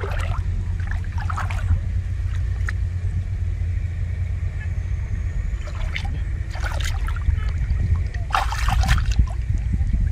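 Water splashing and sloshing in short bouts, about three times, over a steady low rumble.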